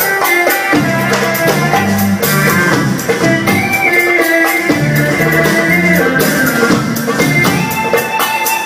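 Live Arabic band playing an instrumental passage: an electronic keyboard carries the melody over a stepping bass line, a drum kit and riq frame-drum tambourines.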